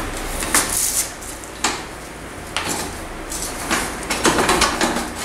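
Metal parts knocking and clinking as a motorcycle rear wheel is worked into place in its swingarm: several separate, irregular clinks and knocks over the steady hum of an electric fan.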